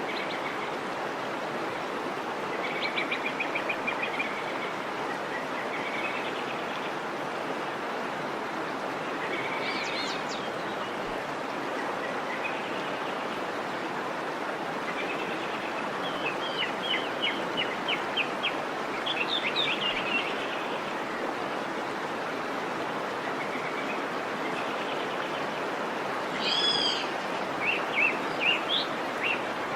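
Waterfall rushing steadily, with birds calling over it in several short runs of chirps and trills, the loudest near the end.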